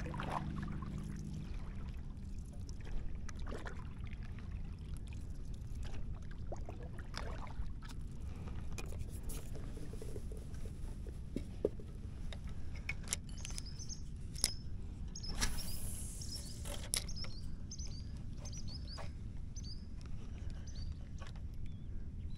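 Stand-up paddle strokes in calm water, with scattered knocks of the paddle against the board, over a low steady rumble. In the second half a run of short, high chirps repeats every fraction of a second.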